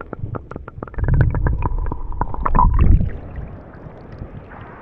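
Sound recorded with the microphone underwater in shallow sea water: a muffled low rumbling of moving water with many sharp clicks. About three seconds in the microphone comes out of the water and the sound turns to a quieter, steady open-air hiss of wind and lapping water.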